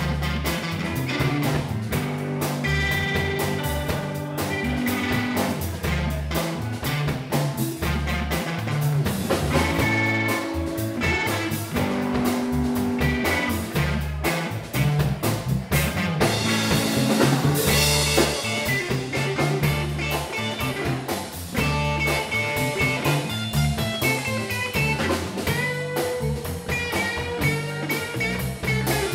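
Live blues band playing an instrumental: electric guitar lead lines over electric bass and a drum kit, a little louder and brighter about two-thirds of the way through.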